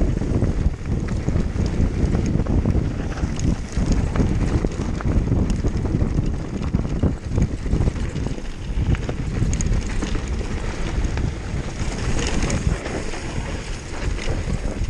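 Wind buffeting the microphone over the rattle and clatter of a downhill mountain bike riding fast over rough ground, with many short knocks.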